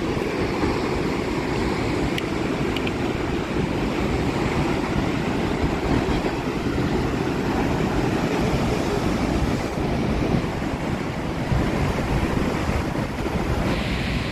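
Heavy ocean surf breaking and churning against the rocks below the cliff, a steady rushing rumble, with wind buffeting the microphone.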